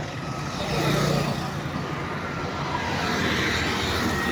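Road traffic: engines of passing motorcycles and small vehicles close by, loudest about a second in.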